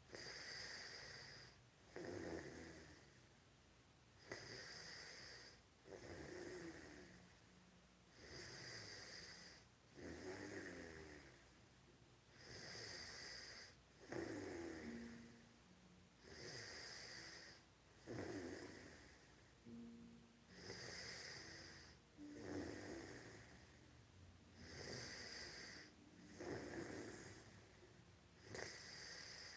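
A person snoring steadily in sleep, a sound on each breath about every two seconds. A lower-pitched snore alternates with a hissier breath.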